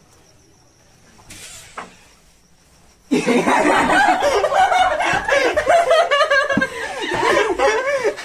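A steady high cricket chirring in the quiet with a brief rustle partway through, then about three seconds in a group of young people suddenly bursts into loud laughter and yelling that carries on to the end.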